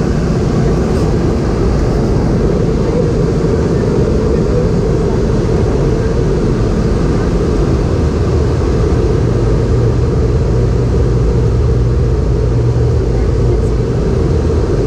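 Steady cabin noise of a Boeing 717 in flight: a low, even rush of airflow and the rear-mounted Rolls-Royce BR715 turbofans, heard from inside the passenger cabin.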